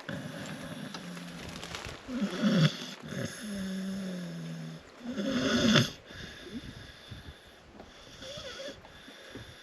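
A dog snoring, with loud snores about two and five seconds in and a steady droning breath between them. It goes quieter for the last few seconds.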